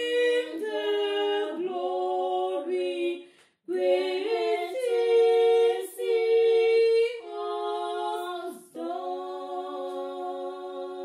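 Two women singing a cappella in two-part harmony, holding long notes. They break briefly for breath about three and a half and again nearly nine seconds in, then start a long held closing phrase.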